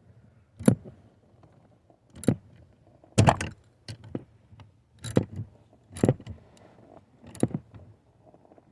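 A ratchet wrench clicking in short bursts, about one stroke a second, as the 10 mm bolts holding the hood release handle bracket are tightened.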